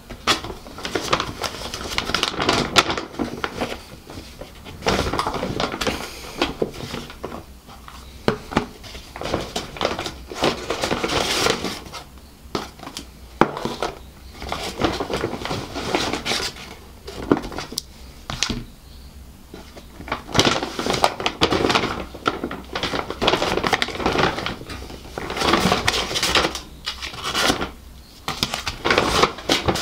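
A paper takeaway bag and its contents being unpacked: paper rustling and crinkling in irregular bursts, with knocks as cardboard boxes, a foil container and paper sauce packets are set down on a wooden table.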